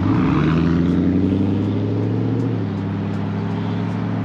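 2003 Ford Lightning SVT's supercharged 5.4-litre V8 accelerating away hard, its pitch rising for about two and a half seconds, then dropping slightly as it shifts up and running on steadily.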